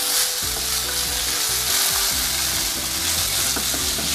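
Julienned chayote sizzling steadily in hot oil in a stainless steel wok, stirred and tossed with a wooden spatula.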